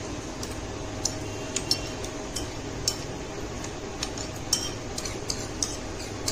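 Metal spoon clinking and scraping against a bowl as thick yogurt is scooped out: irregular light clinks, about two or three a second, over a steady low hum.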